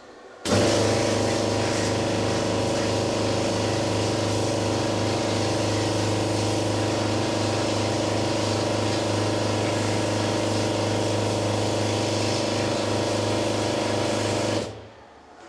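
Torrent 400 parts washer running: its pump hums steadily under the hiss of the pressurised spray. It starts about half a second in and cuts off near the end.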